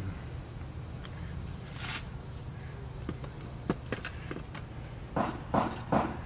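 Crickets trilling steadily on one high note. A few faint clicks from about three seconds in, then near the end a quick run of short noisy sounds, about two or three a second, louder than the crickets.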